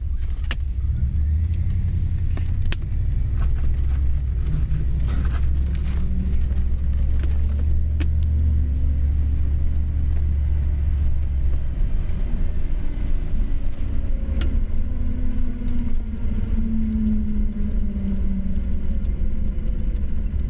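A four-wheel-drive vehicle's drivetrain making a bad noise while driving in 4WD: a steady heavy low rumble. A pitched hum comes in during the last few seconds, and there are a few sharp clicks.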